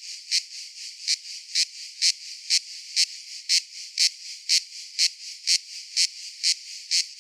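Cicada calling in a steady rhythm of short, sharp, high-pitched buzzy pulses, about two a second, over a softer continuous hiss.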